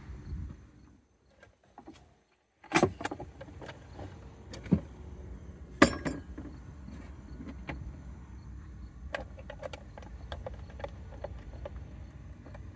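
Sharp clicks and knocks of hand tools and small metal and plastic parts being handled as a fuel pump assembly is screwed together, with three louder knocks in the first half and lighter clicks after, over a steady low background rumble.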